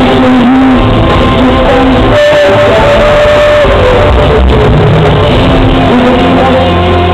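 Live rock band music played loud in a large hall, with sustained notes over a full band sound, recorded from the audience.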